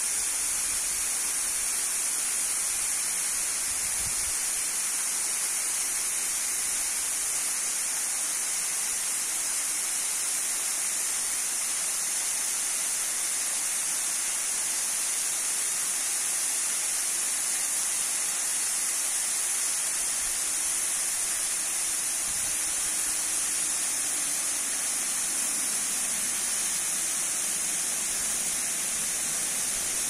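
Thin waterfall streaming and splashing down a mossy rock face: a steady, high-pitched hiss of falling water.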